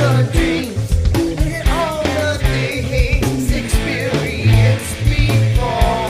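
Rock song with a steady drum beat, guitar and a singing voice.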